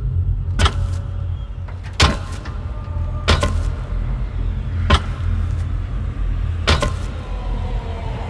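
Sound-effects bed of a low, steady rumbling drone, with a sharp, echoing knock about every one and a half seconds, five in all.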